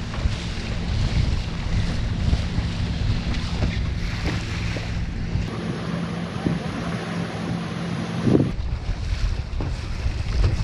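Wind buffeting the microphone and water rushing and splashing along the hull of a Sunfish sailing dinghy moving through choppy water in strong wind, with a brief knock about eight seconds in.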